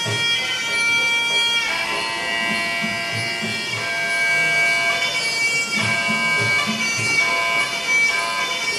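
Traditional Thai boxing music (sarama): a shrill reed oboe (pi chawa) plays a wavering melody of held notes over regular hand-drum beats.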